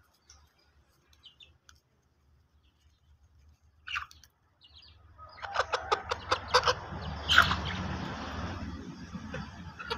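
Chickens clucking and calling, faint at first, then louder from about halfway, with a quick run of sharp strokes followed by a longer, louder call.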